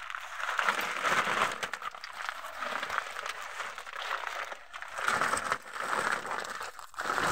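Woven plastic sack rustling and crinkling as hands pull it open and rummage inside it, on and off with no steady rhythm.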